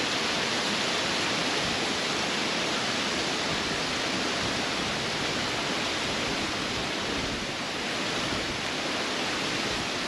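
Steady rush of cascading water from a large rainforest waterfall, an even noise that holds at one level throughout.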